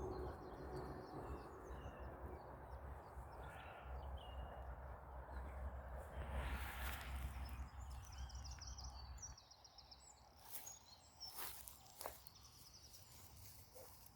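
Faint woodland ambience with birds singing in the distance and a low rumble that cuts off about nine seconds in. A few soft clicks follow near the end.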